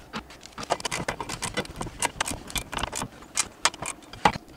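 Rapid, irregular metal clicks and clinks: a screwdriver and a wrench working the bolt that holds a gas strut at the top of a roof tent's lid, about five small clicks a second.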